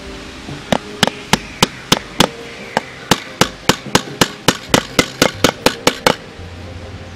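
Steel nail being hammered into a plywood board: about twenty sharp strikes starting under a second in, coming a little faster toward the end, then stopping about six seconds in.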